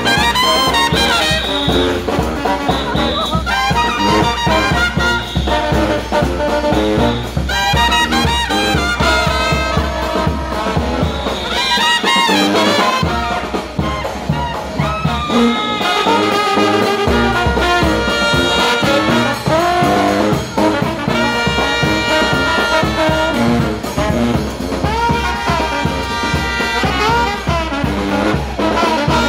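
New Orleans street brass band playing live jazz: trombones and trumpets over a sousaphone, with a steady low beat. The low end drops out for a few seconds about halfway through, then comes back.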